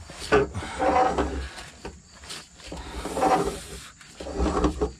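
A man grunting and straining with effort in about three bouts as he forces a stiff jounce bumper round with an oil filter wrench.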